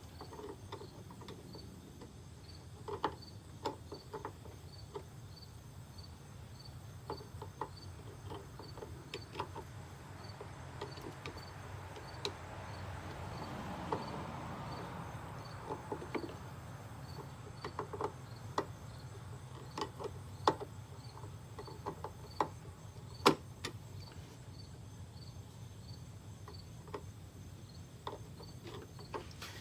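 Flathead screwdriver clicking and knocking against a commercial vacuum's housing as a cover is pried at: scattered sharp clicks, the loudest about two-thirds through. A cricket chirps steadily behind it, about two chirps a second.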